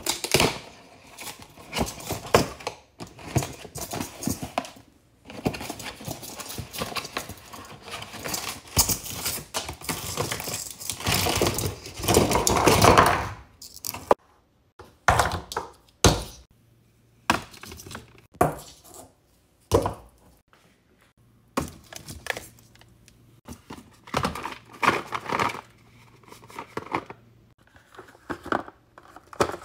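Packaging being handled on a stone countertop: a cardboard carton of Italian ice cups opened and shaken out, with a run of knocks and rustles and a louder clatter about halfway through as the cups tumble onto the counter.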